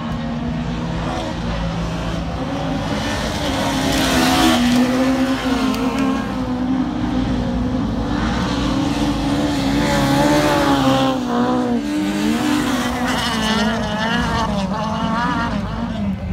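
Rallycross cars racing, their engines running hard with the pitch rising and falling over and over as they lift off and accelerate, loudest about four and ten seconds in.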